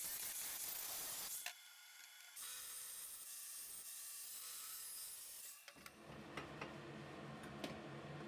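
Angle grinder with a thin cut-off disc grinding through a square steel profile pipe, heard as a steady hissing grind. The grind breaks off briefly about a second and a half in, resumes, and stops a little before six seconds. After it come a few light clicks as the cut pipe is handled.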